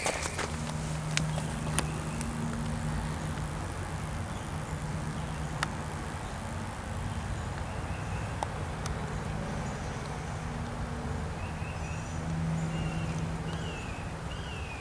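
A steady low mechanical hum over a low rumble. From about two-thirds of the way in, a bird calls with a run of short, falling chirps.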